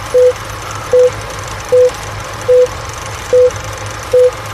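Film countdown leader sound effect: a short beep at one pitch for each number counted down, six beeps evenly spaced a little under a second apart, over a steady hiss and low hum.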